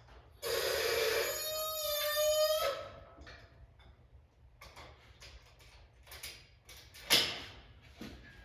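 Cherry picker (shop engine hoist) arm being lowered: a single high squeal lasting about two seconds and rising slightly in pitch, followed by light clicks and knocks of metal handling, with one sharper knock near the end.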